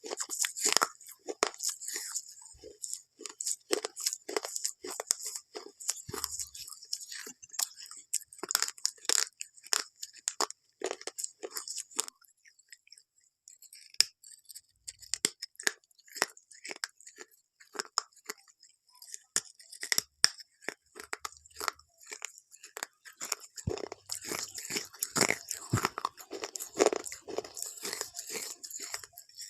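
Crunchy food being bitten and chewed close to the microphone: rapid crisp crackles, with a short pause a little before halfway and a denser run of crunching near the end.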